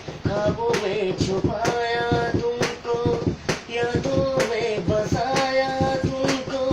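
Music without words: a held melody line over a sharp, steady beat about once a second, in the gap between sung lines of a Hindi film song.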